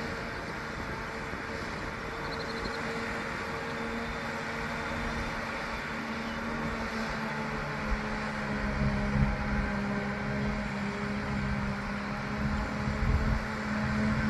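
An engine running steadily with a low hum, its rumble growing louder from about halfway through.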